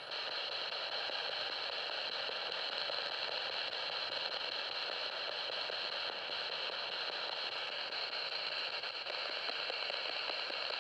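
Steady radio static hiss, with no voices or clear words in it, of the kind a spirit box gives while it scans for answers.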